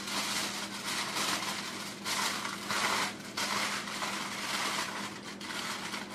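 Aluminium foil crinkling and rustling in repeated bursts as hands fold and crumple it around whole sweet potatoes, over a low steady hum.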